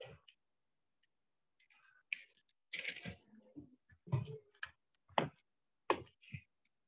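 Scattered short clicks and knocks, about half a dozen irregularly spaced, with a brief breathy rustle in between, cutting to dead silence between each.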